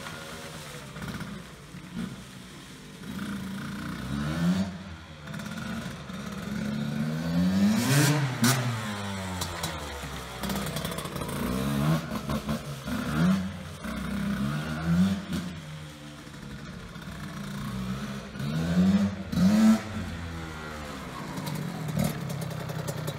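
1988 Cagiva WMX 125's two-stroke single-cylinder engine being ridden, its revs rising and falling again and again every couple of seconds, the strongest rev about eight seconds in.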